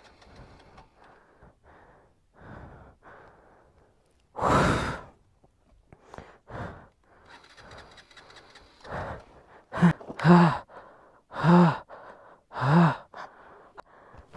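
A man breathing hard and sighing, out of breath in the thin air at extreme altitude. There are soft breaths at first, one long heavy exhale about four seconds in, then four short voiced exhales near the end.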